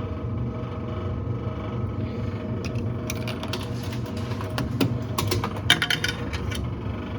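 Quarter rattling through a vending machine's coin mechanism after the coin reject is pressed: a run of sharp metallic clicks and clinks for about four seconds, the loudest near the end as it lands in the return cup. A steady low hum runs underneath.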